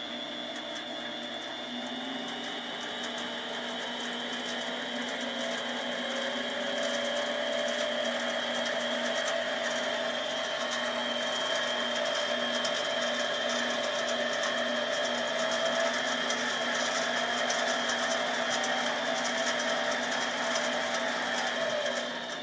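Metal lathe running unloaded with no cut being made, its motor and drive giving a steady whine. The whine rises in pitch and loudness over the first several seconds, holds steady, then drops in pitch and level right at the end.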